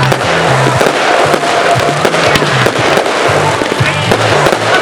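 Fireworks display: a dense run of crackles and bangs from exploding shells over music with a steady bass line.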